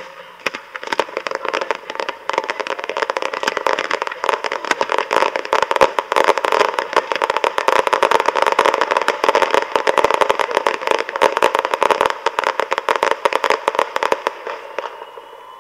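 Fireworks crackling: a dense, rapid run of small cracks and pops that starts about half a second in, builds, and stops near the end.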